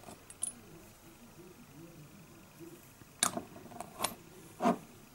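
A few small clicks and taps from fingers handling a small plastic model-kit part, over quiet room tone: one about half a second in, a cluster a little past three seconds, and a duller one near the end.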